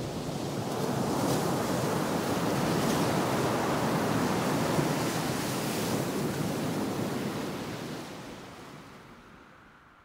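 A steady rushing noise, like surf or wind, that swells about a second in and then fades away over the last few seconds.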